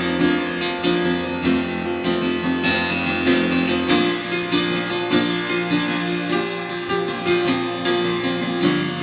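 Music: piano and plucked strings playing a slow passage, with notes struck at a steady pulse.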